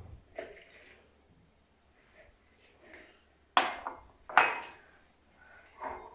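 A drinking glass set down on the kitchen counter among other glasses: two sharp clinks with a short ring, a little under a second apart, about halfway through.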